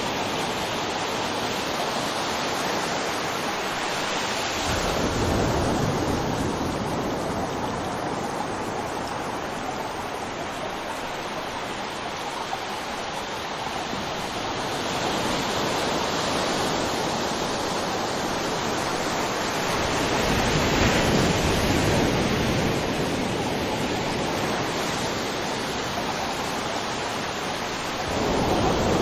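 River water rushing and flowing steadily, with the low rumble swelling up a few times.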